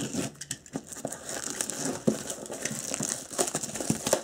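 Plastic wrap being pulled off a cardboard box, crinkling continuously with many small crackles.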